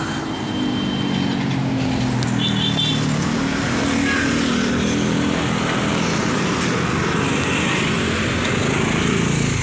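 Road traffic heard from a bicycle on a city street: a steady rush of passing vehicles, with a motor vehicle's engine hum that falls slowly in pitch over the first few seconds.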